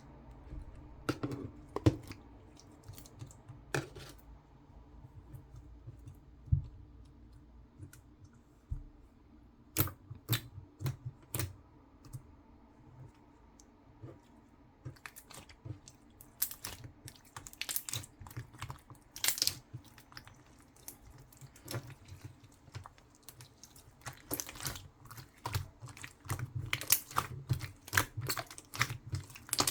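Hands kneading and mixing clay into slime, making irregular sticky clicks and crackles that come faster in the last few seconds.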